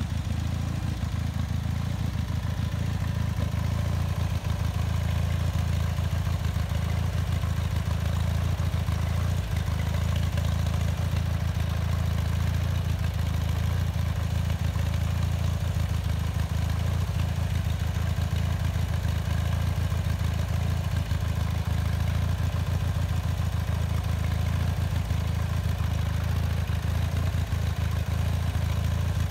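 Bolens HT20 garden tractor's engine running at a steady speed, a constant low hum with no revving.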